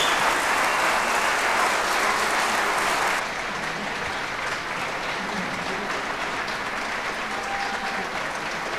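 Audience applauding; the clapping eases off about three seconds in and carries on more softly.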